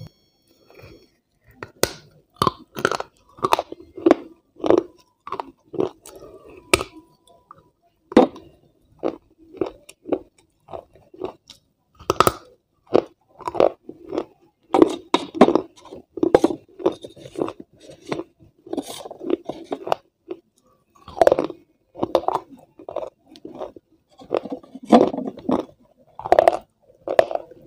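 Close-miked crunching and chewing: a person biting into and chewing hard, brittle pieces, with sharp crunches coming irregularly about once or twice a second.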